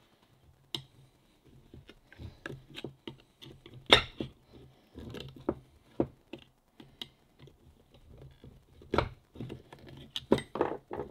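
Steel screwdriver prying and scraping a worn, cracked rubber impeller out of a Sherwood G65 raw water pump's bronze housing: irregular clicks and scrapes of metal on metal, with sharper knocks about 4 s and 9 s in.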